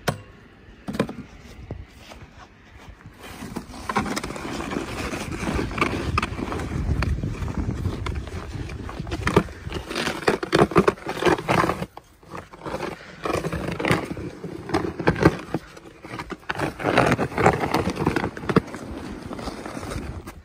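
Snow pusher being shoved through fresh snow on a platform, with scraping and crunching strokes and footsteps in snow. It starts about three seconds in and breaks off briefly about twelve seconds in.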